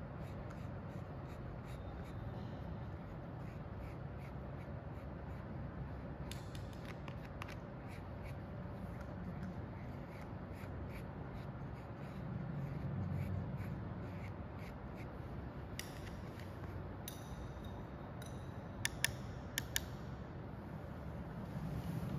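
A metal spatula scraping wet casein curd off filter paper into a glass petri dish: faint scrapes and small ticks over a steady low hum, with a few sharp clicks about three-quarters of the way through.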